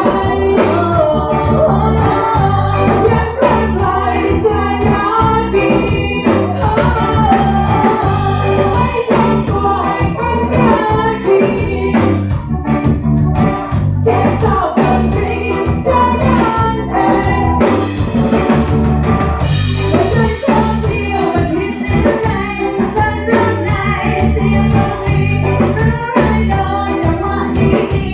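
Loud music with singing over a steady beat.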